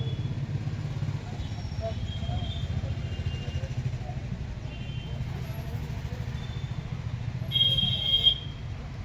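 A steady low motor-vehicle rumble, with a short, loud, high-pitched tone near the end.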